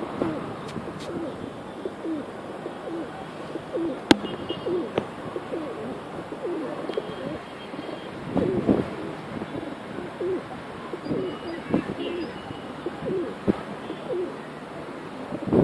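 Several pigeons cooing, short low calls repeating and overlapping throughout, busiest about eight to nine seconds in. A sharp click sounds about four seconds in, and there are faint higher chirps.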